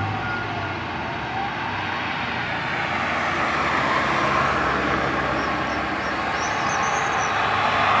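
Road traffic noise from a car passing, with a fire engine siren wailing faintly in the distance near the start. The noise grows louder toward the end as the emergency vehicles approach.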